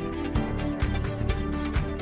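Background music with a steady beat, about two strokes a second, over sustained chords.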